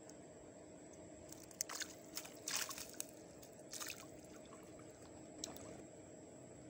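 Water splashing and trickling in a few short bursts, between about one and a half and four seconds in, over a faint steady hum.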